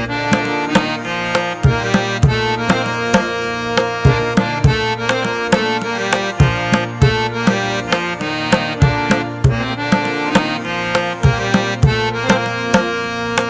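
Background music of Indian style, tabla strokes keeping a steady beat under sustained melodic notes.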